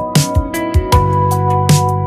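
Background music: electronic track with sustained synthesizer chords over a steady kick-drum beat and crisp percussion hits.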